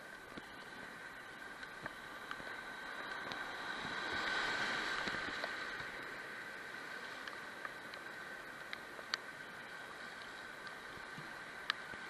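Rushing whitewater around a kayak running a river rapid, swelling to its loudest about four seconds in and then easing off, with scattered sharp ticks.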